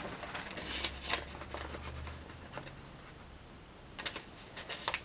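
Faint rustling of paper and a few light clicks as pages are handled, in small clusters about a second in and again near the end.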